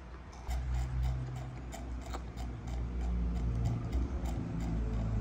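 Baby monkey sucking on a milk bottle: a regular clicking of sucks, about four a second, over a low steady hum that grows louder toward the end.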